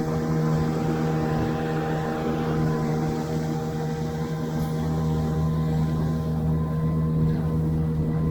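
Boat's outboard motor running at a steady speed under way, an even hum with no change in pitch, cutting off suddenly near the end.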